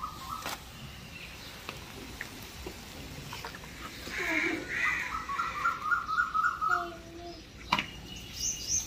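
Birds calling and chirping outdoors: two louder calls about four seconds in, then a quick run of repeated short chirps, and high rapid chirping starting near the end. A single sharp knock sounds shortly before the end.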